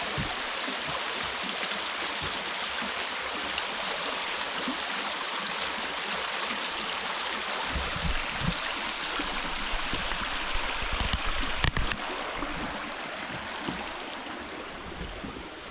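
A flowing creek rushing steadily over rocks, running well after rain. In the second half there are a few low thumps and a sharp click about twelve seconds in.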